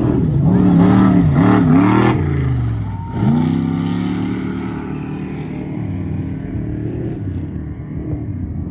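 Off-road race vehicle engine going by at full throttle, its revs dipping and picking up three times in quick succession. Just before three seconds in the revs drop sharply, then climb again as it accelerates away and slowly fades.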